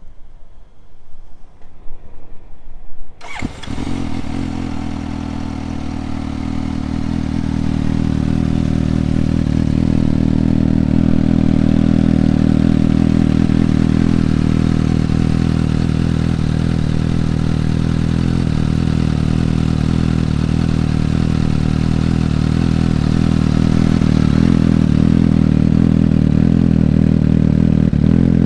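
2020 Suzuki GSX-S750's inline-four engine, breathing through a Yoshimura AT2 slip-on exhaust, starting about three seconds in and then idling steadily. It gets louder over the next several seconds, then holds an even idle.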